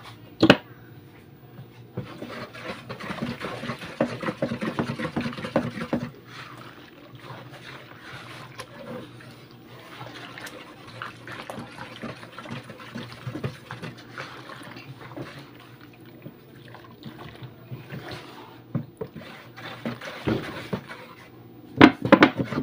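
Thick liquid laundry soap pouring in a thin stream from an upturned plastic bottle into a plastic basin of foamy soapy water, stirred with a wooden spoon; the pouring and splashing is louder during the first few seconds.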